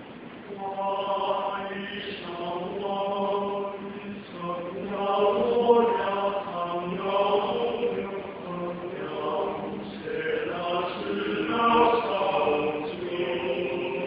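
Small male vocal ensemble of five singing unaccompanied in harmony: held chords that change in phrases, coming in about half a second in.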